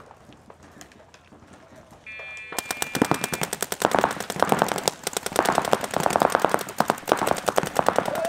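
Paintball marker fire: after a quiet spell and a short steady beep, rapid strings of shots start about two and a half seconds in and keep going, many shots a second.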